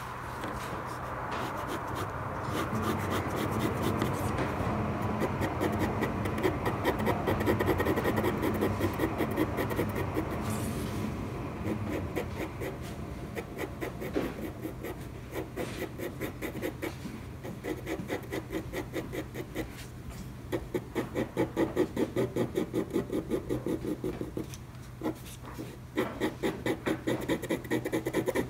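Red colored pencil lead hatching on paper: a rapid run of short scratchy strokes, several a second, the 'zah-zah-zah' of the lead rubbing the paper. The strokes are more distinct near the end, after a brief lull about two-thirds of the way through.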